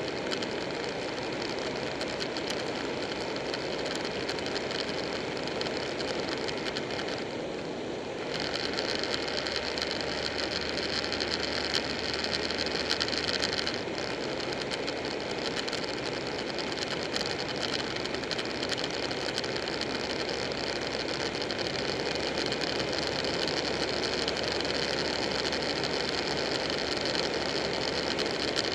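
Buell 1125R's V-twin running at steady road speed, with wind and road rush on the microphone of the moving bike. The sound gets a little louder and brighter about eight seconds in.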